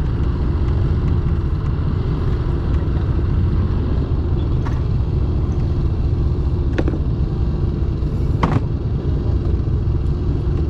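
Fishing boat's engine running with a steady low rumble and hum, and a few brief sharp sounds a little under halfway in, later, and near the end.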